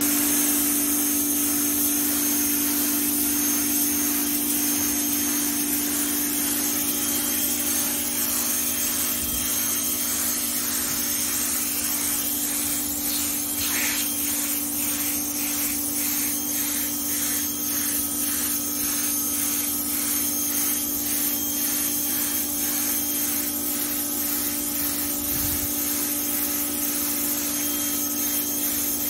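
Pressure washer running steadily: a constant low drone under the hiss of the water jet blasting grime off concrete paving slabs.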